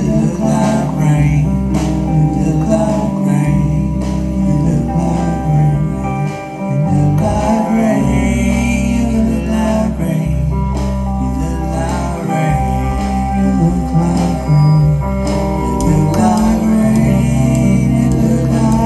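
Live blues-rock band playing electric guitar, electric bass and drums in a steady groove.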